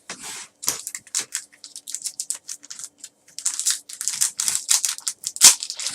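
Trading cards handled by hand: a quick run of small clicks and rustles as cards are flipped through and slid against one another, busier in the second half. There is a faint steady hum underneath.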